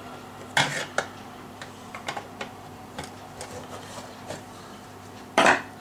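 Metal casing of a small electric oven being handled and lifted open: scattered light clicks and taps, with a louder clatter about half a second in and another near the end.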